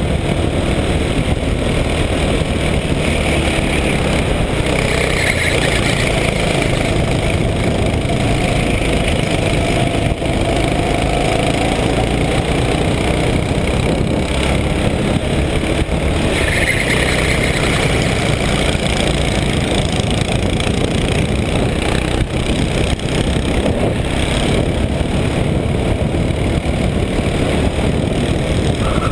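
Racing kart engine running hard under way, heard close up from the kart itself, its pitch rising and falling with the speed through the corners.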